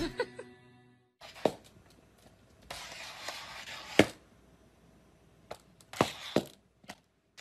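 A puppy's plastic cone collar knocking and scraping against a tile floor: a handful of sharp knocks, the loudest about four seconds in, with stretches of scraping between them.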